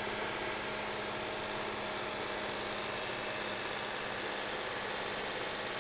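Supercharged 3.0 TFSI V6 of a 2010 Audi S4 idling: a steady hum under an even hiss, with no change in pitch or level.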